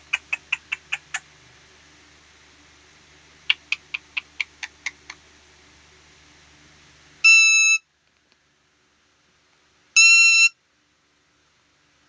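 A pet green parakeet giving rapid runs of short, sharp screeching calls, about five a second, one run at the start and another a few seconds later. Then come two flat, steady beeps about half a second long, some three seconds apart.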